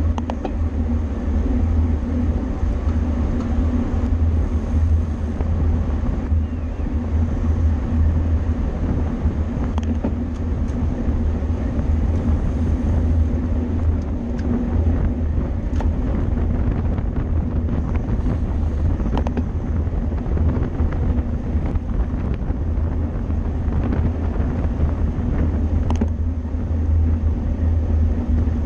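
Steady low rumble of wind on the microphone and road noise from a road bicycle riding at race speed, with a few brief clicks.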